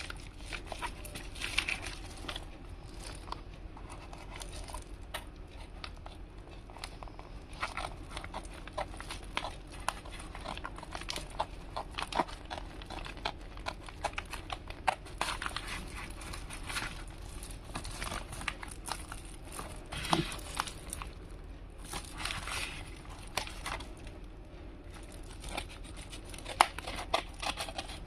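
Hands unboxing an earbud case: packaging crinkling and rustling, with many small irregular clicks and taps. The busiest crinkling comes near the start, about two-thirds of the way through and again shortly after.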